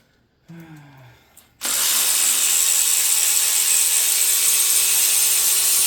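A loud, steady hiss that starts abruptly about a second and a half in and cuts off sharply at the end.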